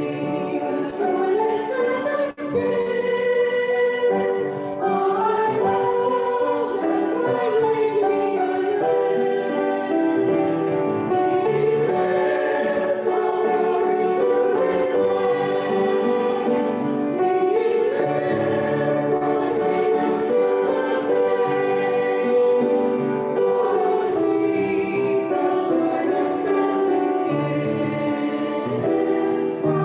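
Choir singing a slow sacred song, with sustained voices.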